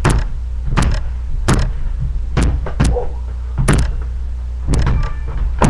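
A basketball bouncing on the floor: about eight sharp thuds at uneven intervals of roughly half a second to a second, over a steady low electrical hum.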